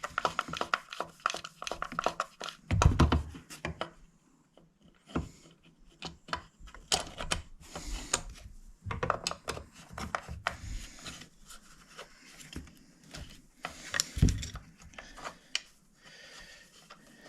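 Chainsaw clutch cover being handled and fitted over the bar and bar studs of a Husqvarna 372-clone saw: scattered clicks and taps of plastic and metal parts, with two heavier thunks, about three seconds in and again about fourteen seconds in.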